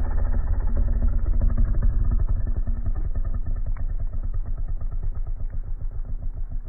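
Snow leopard growling: a low, fast-pulsing rumble from its throat, easing off slightly towards the end.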